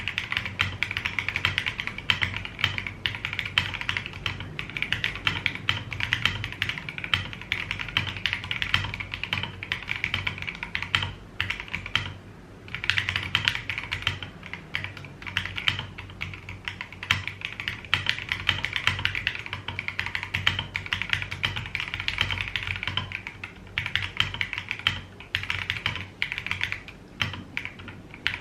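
Fast, continuous typing on an Akko Mod007 mechanical keyboard with Akko Jelly Black linear switches on an FR4 plate and SA-profile keycaps, dense keystrokes with a couple of brief pauses.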